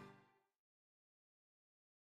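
Near silence: the tail of the background music dies away in the first instant, then complete silence.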